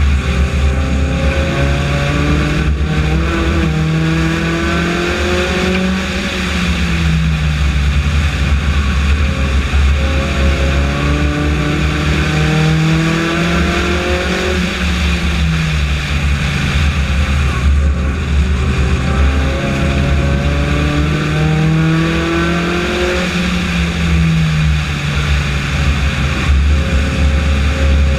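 Four-cylinder Honda race car engine heard from the onboard camera at racing speed. Its revs climb down each straight and drop back for each turn, three times over, above a steady low rumble.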